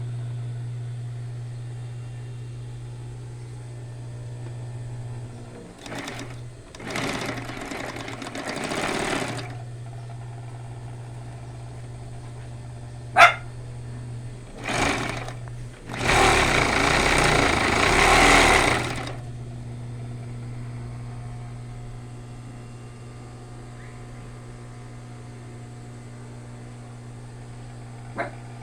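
Union Special 56300 industrial sewing machine: its motor hums steadily while the machine is run in two stretches of stitching, each about three seconds, with a short burst and a sharp click between them.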